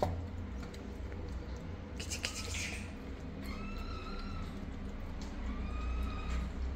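Kittens mewing faintly: three thin, high-pitched mews, over a steady low hum.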